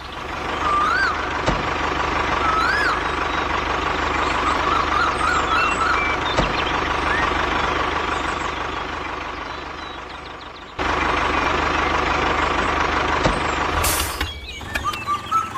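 A small machine running steadily with a constant whine, with a few short chirping squeaks over it in the first few seconds. The sound cuts out and back in abruptly about eleven seconds in.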